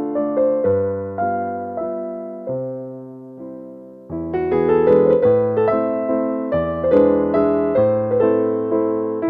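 Background piano music: gentle notes that strike and fade, thinning out for a moment before fuller chords come back in about four seconds in.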